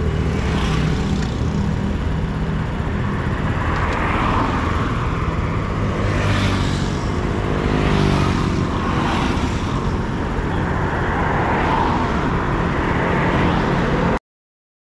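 Small motorcycle engine idling under the rider, with other motorcycles and traffic passing close by, their engines swelling and fading several times. The sound cuts off abruptly near the end.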